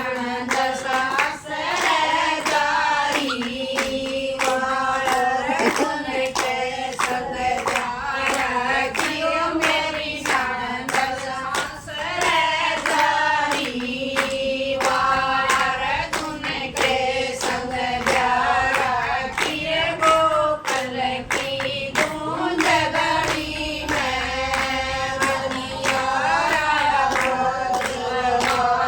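A group of women singing a Haryanvi folk devotional song together, with hand clapping keeping a steady beat.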